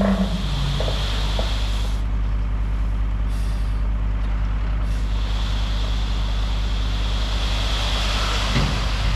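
Excavator's diesel engine running steadily under work, with a higher whine that swells about a second in, fades, and builds again from about five seconds on as the machine works.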